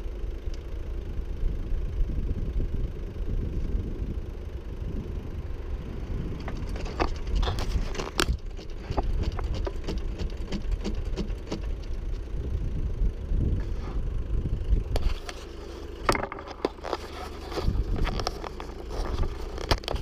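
The 2.0-litre Mercedes-Benz 123 engine of a homemade backhoe running steadily while the bucket digs soil, with scattered knocks and scrapes that come thicker near the end.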